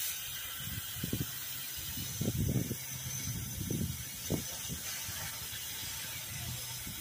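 Compressed air from an air hose hissing steadily into the filler of a diesel fuel tank, pressurizing it to push fuel through the lines and purge air at the injection pump; the hiss cuts off suddenly at the end, with a few low bumps underneath.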